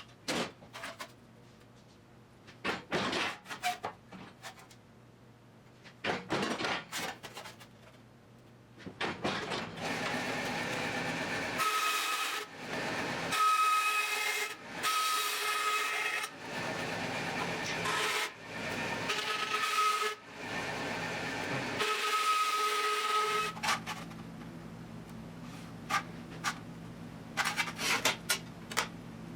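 Sheet-metal work: a few scattered knocks and taps, then a whining power tool with a hiss, run in several bursts of one to three seconds with short stops, then more light taps near the end.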